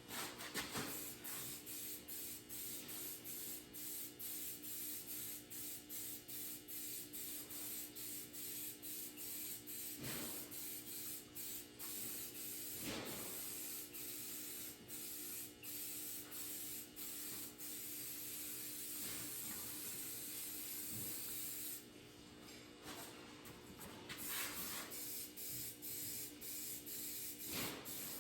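Hissing spray, broken into many short pulses by brief gaps, with a short pause about three quarters of the way through.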